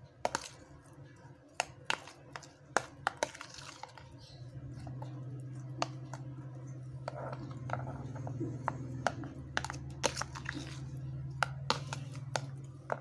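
Metal spoon stirring a wet mix of crickets and raw egg in a plastic food container, with irregular sharp clicks and knocks of the spoon against the plastic. A low steady hum comes in about four seconds in.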